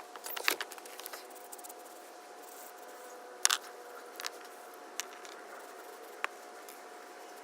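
Scattered clicks and taps of small carburetor parts and tools being handled: a quick cluster in the first second, then a few single sharp clicks. A faint steady hum runs underneath.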